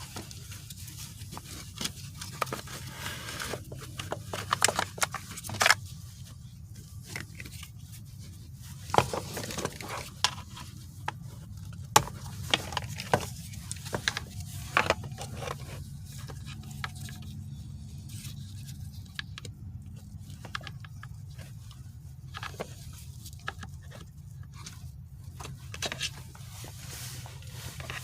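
Scattered sharp clicks, knocks and scrapes of hand tools and small metal parts being handled, as on a manual shifter assembly being taken apart. A steady low hum runs underneath. The clicks are thickest in the middle and thin out near the end.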